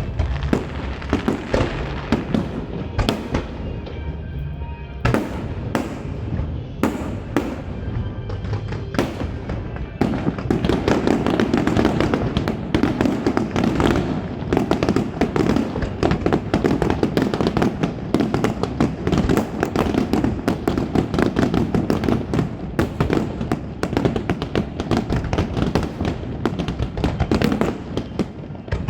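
Aerial fireworks bursting in a string of sharp bangs. About ten seconds in, they build into a dense, rapid barrage of bangs and crackle.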